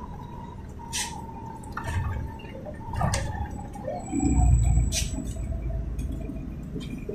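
Inside a LiAZ 5292.67 city bus on the move: its YaMZ-53624 gas engine and road noise make a steady low rumble, with sharp rattles and clicks from the body and fittings and a faint wavering whine. The rumble swells for about a second, four seconds in.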